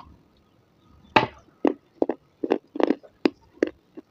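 A person bites off a piece of white slate pencil with one loud crunch about a second in, then chews it in a quick series of sharp, gritty crunches, about three a second, picked up close on a clip-on microphone.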